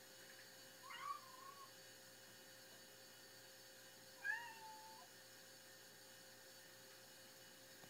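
Black kitten giving two short whiny meows, about three seconds apart, each dipping in pitch and trailing off: his whining to be let out onto the balcony.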